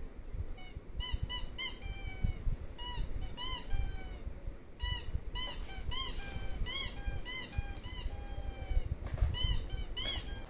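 A long run of short, high squeaks, each rising then falling in pitch, coming in quick clusters of two to four with brief gaps between.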